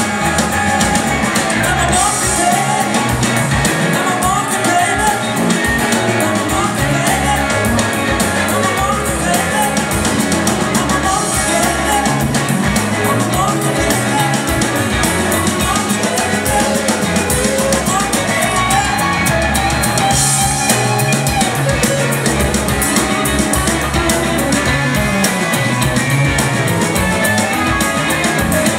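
Live rock band playing: electric guitars over bass guitar and drum kit.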